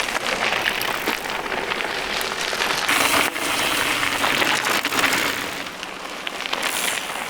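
Mountain bike tyres rolling over a gravel and dirt trail: a steady crunching crackle with many small clicks of grit, swelling and easing as the bikes ride past.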